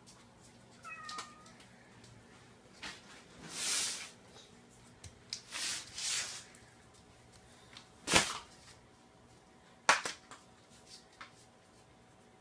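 A cat meows briefly about a second in. Several short rushing noises follow, then two sharp knocks, one near eight seconds and one near ten.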